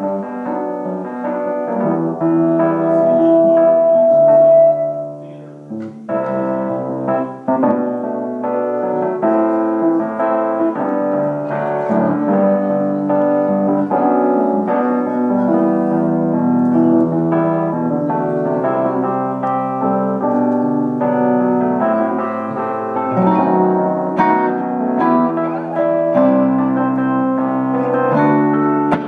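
Piano playing sustained chords and melody lines at steady volume. The playing eases off briefly about five seconds in, then carries on.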